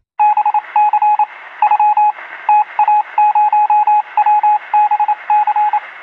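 Short electronic beeps at one steady pitch, switching on and off rapidly in uneven groups of long and short tones over a steady hiss, like a tone keyed over a radio or phone line.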